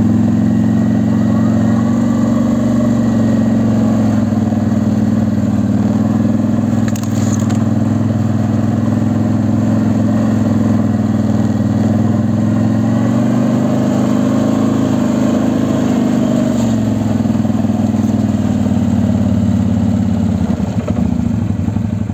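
Two-cylinder ATV engine running under load at cruising speed, its pitch rising and falling gently with the throttle.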